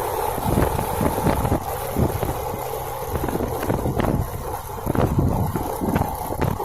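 Vehicle running on the road, with wind rumbling on the microphone in uneven gusts.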